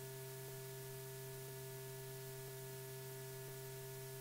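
Steady low hum from an old film soundtrack, with a few fainter higher tones over a hiss and a faint tick about once a second.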